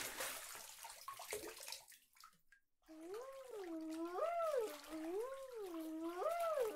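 Water splashing in a small bathtub for about two seconds. After a short pause, a wordless tune starts, its pitch gliding smoothly up and down about once a second.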